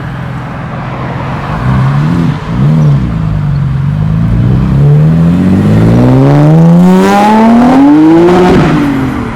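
A car engine revving in two quick blips, then accelerating hard, its pitch climbing steadily for about four seconds at full loudness before it drops and fades near the end as the car goes past and away.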